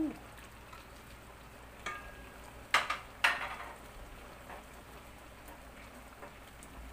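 Coconut milk simmering in a stainless steel pot under a layer of pechay leaves: a steady faint crackle. About two to three seconds in come three sharp knocks against the pot as the leaves are pressed down by hand.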